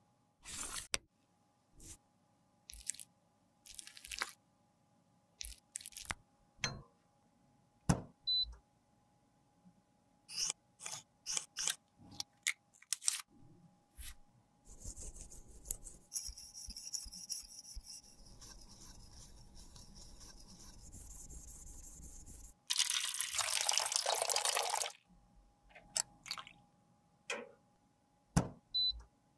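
Close-miked handling sounds of a lipstick tube and small tools: scattered light taps and clicks, then a soft steady hiss for several seconds, then a louder hiss for about two seconds, with a few more taps near the end.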